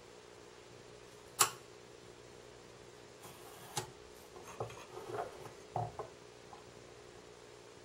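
A sharp click about one and a half seconds in, then a run of lighter taps and short scrapes: a steel square and a pencil being set down, shifted and drawn across a small wooden block while marking diagonal lines to find its centre.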